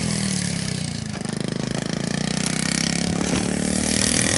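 Small 50cc dirt bike engine running in first gear: the revs dip at the start, then climb steadily as the rider holds the throttle without shifting up.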